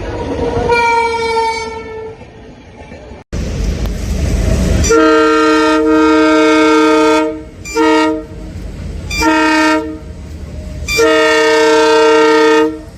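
Indian Railways locomotive horns. One short blast comes about a second in. After a cut, over the low rumble of a running train, a deeper multi-note horn sounds four times: long, short, short, long.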